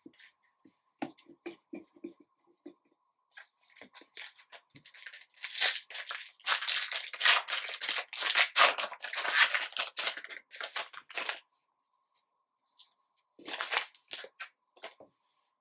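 A trading-card pack's wrapper being torn open and crinkled, a dense crackling from about five seconds in until about eleven. Before it come soft clicks and slides of cards being handled, and near the end a short rustle as the cards are drawn out of the pack.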